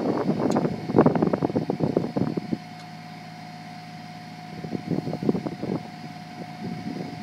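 Compact tractor running a Cochet Viper tractor-mounted hydraulic hedge trimmer: a steady engine hum and a constant whine from the machine. Irregular rough crackling noise is loud for the first two and a half seconds, drops away, and returns a couple of seconds later.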